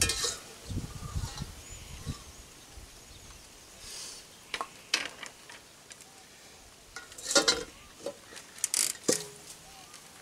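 Metal spoon and tongs clinking and scraping against a frying pan of macaroni, with knocks as the pan is set down on a wooden bench. The loudest clatter comes about seven and a half seconds in.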